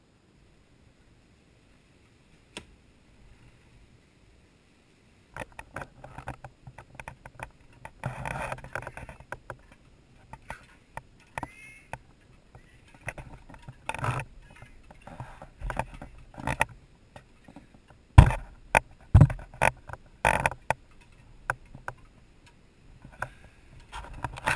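Handheld camera being picked up and carried: handling rustle, footsteps and knocks on the microphone, irregular throughout, with a few loud thumps late on. The first few seconds are near silent apart from a single click.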